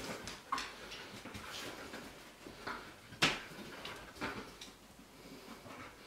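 A dog's claws clicking and tapping on a parquet floor as it walks about searching, with one sharper knock about three seconds in.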